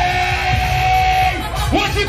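Loud dance music with a heavy bass beat, a voice holding one long note for just over a second before singing or shouting resumes near the end.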